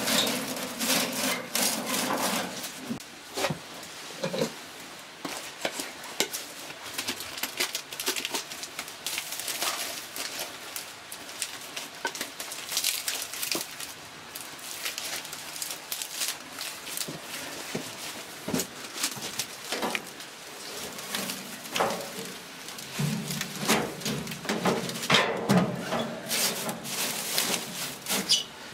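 Dry straw rustling and crackling, a dense run of small snaps and crinkles, as it is handled and layered across itself in a lauter tub to form the straw filter bed for the mash.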